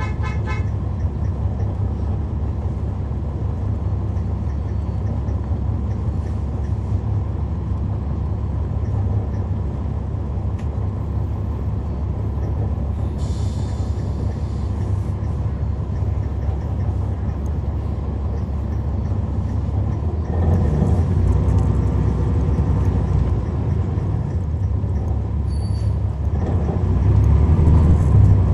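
Inside a 2011 NABI 40-SFW transit bus under way, its Cummins ISL9 diesel engine running with a steady low rumble. About halfway through there is a short hiss of air. The engine grows louder about twenty seconds in and again near the end.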